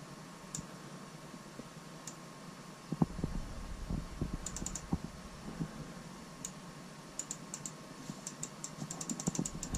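Keystrokes on a Sony VAIO laptop keyboard: scattered clicks with a few dull knocks from about three seconds in, then quicker typing near the end.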